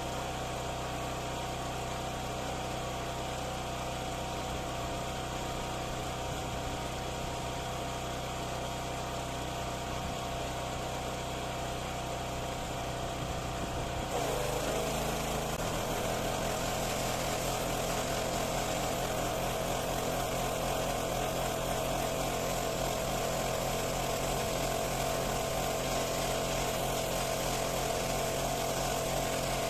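Pressure washer running steadily. About halfway through, its note briefly dips, then it runs louder with more hiss up high and stays steady.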